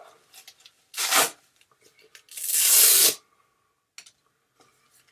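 Velcro hook-and-loop strips being ripped off a compression garment: a short rip about a second in, then a longer, louder rip a second later.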